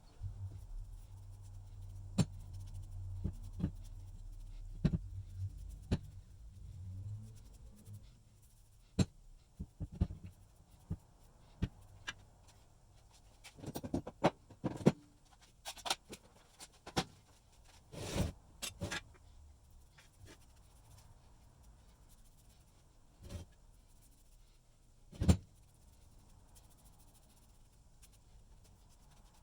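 Scattered sharp clicks and knocks of metal parts and tools being handled at a workbench, with a low steady hum during the first seven seconds or so.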